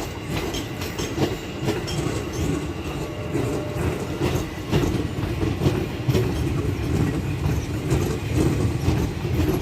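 A JR 205 series KRL electric commuter train running past, its wheels rumbling and clicking steadily over the rail joints.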